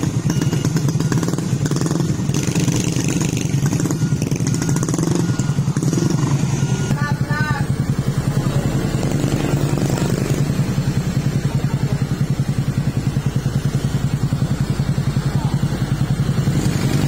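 Mitsubishi Fuso truck's diesel engine running at low revs with a steady, even throb as the truck crawls slowly forward.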